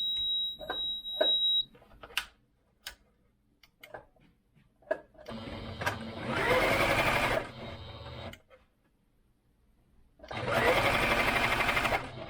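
Singer Advance 7422 electronic sewing machine: a steady high beep stops about a second and a half in, a few clicks follow, then the motor spins up and runs at speed twice for about three seconds each, as in a test of its bobbin-winding fault.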